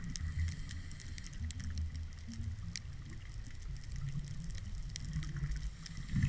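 Underwater reef ambience heard through a camera's waterproof housing: a low, uneven rumble of moving water with scattered faint sharp clicks.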